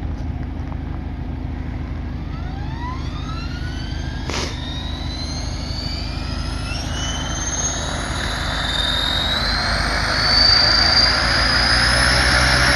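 Align T-Rex 600 ESP electric RC helicopter spooling up: the motor and gear whine climbs steadily in pitch as the rotors gain speed, growing louder near the end. A single click comes about four seconds in.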